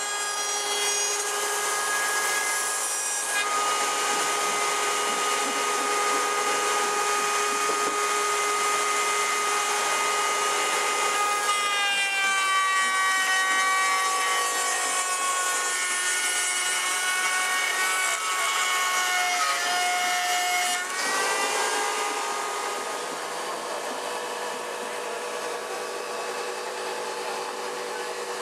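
Electric woodworking power tool running against wood. Its motor whine holds steady, then sags and wavers in pitch for several seconds around the middle as the tool is loaded, then settles again.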